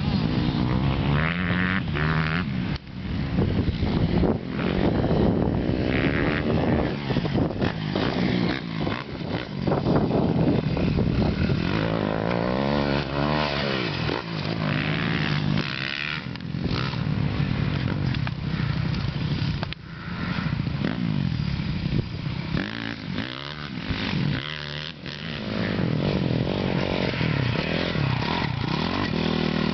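Dirt bike engine revving hard and easing off again and again, its pitch rising and falling, as the bike is ridden at and over a jump.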